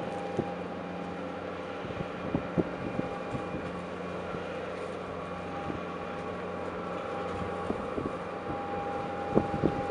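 A steady machine hum at one constant pitch, with a few faint clicks scattered through it.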